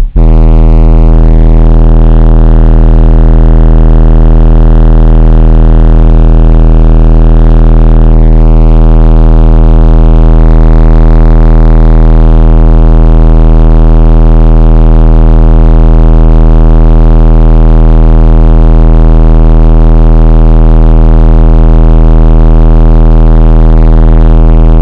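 Audiopipe TXX BF-15 subwoofers playing a 40 Hz sine test tone at high power: one very loud, steady, deep drone with a buzzy stack of overtones. The buzz changes slightly about eight seconds in.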